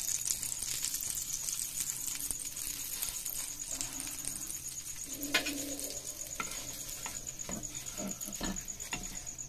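Butter sizzling in a hot non-stick frying pan as a naan is brushed with a silicone pastry brush, with a few light knocks from a wooden spatula against the pan in the second half.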